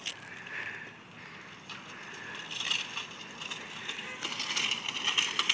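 BMX bike rolling across asphalt toward the microphone: a rustling tyre noise with light rattles that grows steadily louder over the last few seconds.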